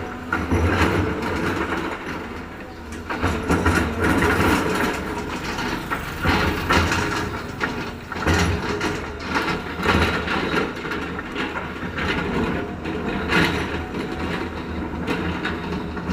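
Heavy construction machinery with its diesel engine running, and repeated metallic clanks and knocks.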